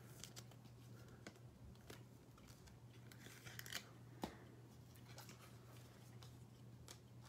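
Near silence: a steady low hum of room tone with a few faint, scattered clicks and rustles.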